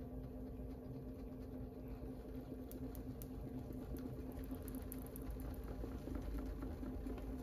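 Electric pottery wheel's motor humming steadily as the wheel spins, with faint wet clicks from clay being worked under the hands.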